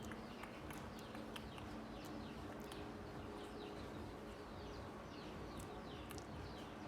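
Birds chirping in the background: many short, quick falling chirps, with scattered faint clicks and a low steady hum beneath.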